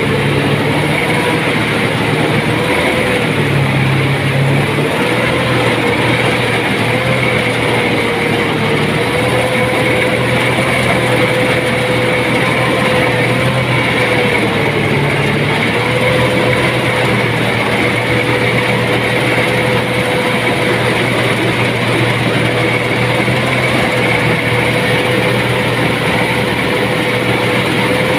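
Rice combine harvester running steadily: a constant loud mechanical drone with a steady whine that wavers slightly in pitch.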